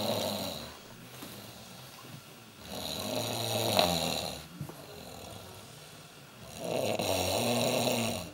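Slow, regular snoring: three snores about four seconds apart, each a noisy snore over a low buzz. The first is already fading at the start, and quieter breathing lies between them.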